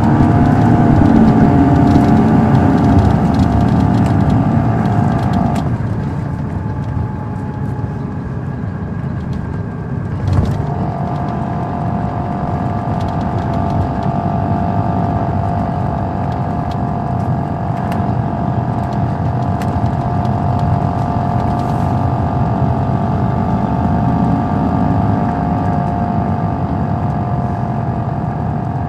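Caterpillar C13 diesel engine of an MCI D4500CL coach running under load, heard from inside the bus, with a steady whine over the rumble. About six seconds in the whine stops and the engine quietens; after a knock about ten seconds in, the whine returns and the engine pulls steadily again.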